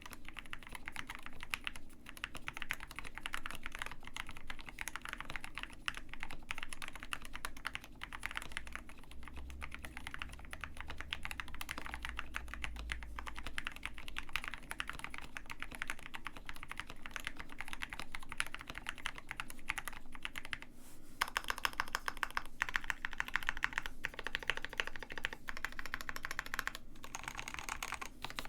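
Continuous typing on a KBD67 Lite R2 65% custom mechanical keyboard in an ABS plastic case, fitted with Gateron Black Ink V2 linear switches: a rapid stream of keystroke clacks. The keystrokes come faster and denser for several seconds after about twenty seconds in.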